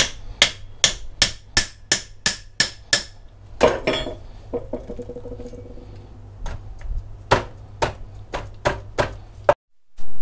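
A heavy steel cleaver knocks down through a whole Asian sea bass's head to split it open, striking metal on metal with a ring after each blow. A run of about nine sharp knocks, roughly three a second, comes first, then a pause and a second, less even run of knocks.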